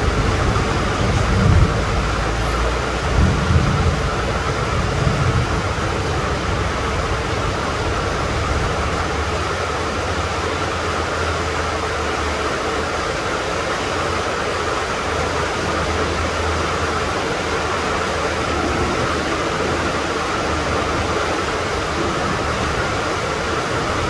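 Steady heavy rain falling, an even hiss with no let-up. Low rumbles come and go in the first five seconds.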